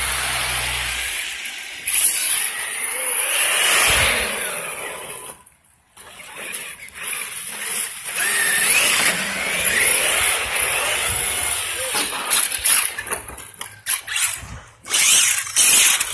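Brushless electric RC cars, a Traxxas X-Maxx 8S and a Traxxas Rustler VXL 6S, driving hard on wet ground. Their motor whine rises and falls as the throttle changes, over a steady hiss of tyre spray. The sound drops out briefly about five and a half seconds in, and sharp knocks and clatters come near the end.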